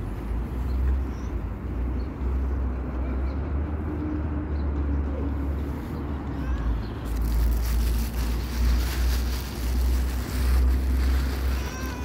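Wind buffeting the microphone: a low rumble throughout, turning into stronger, noisier gusts from about seven seconds in.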